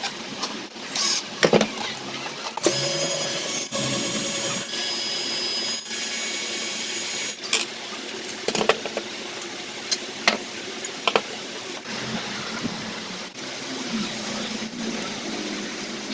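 A small electric motor whirs steadily for about five seconds, starting near three seconds in, amid repeated sharp clicks and knocks of parts and tools being handled.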